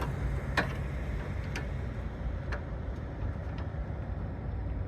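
A few light clicks about a second apart, growing fainter, as a sway bar end link is worked to catch its thread, over a steady low hum.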